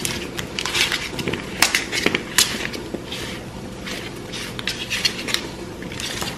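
Kitchen handling on a metal baking tray of vegetables: scattered light clicks and short scrapes, over a faint steady hum.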